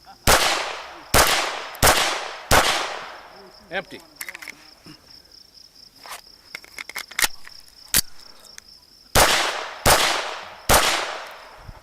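Ruger Mark II 22/45 .22 LR pistol firing: four quick shots about 0.7 s apart, each ringing off. A few light metallic clicks of gun handling follow before three more shots near the end.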